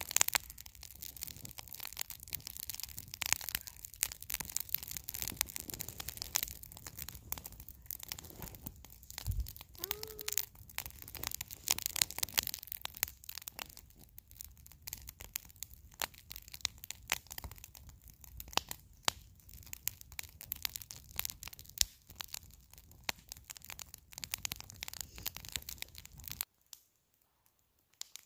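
Split-log campfire crackling, with frequent sharp pops. The sound cuts off suddenly near the end.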